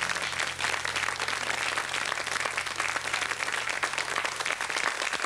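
Studio audience applauding steadily at the end of a song, with a low steady hum underneath that fades out near the end.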